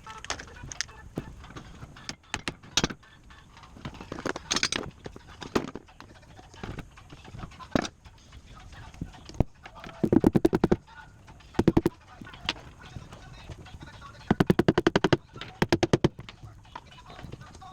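Tool work on wooden galley cabinetry: scattered sharp knocks, and twice a burst of rapid rattling strokes, about ten a second, lasting around a second each.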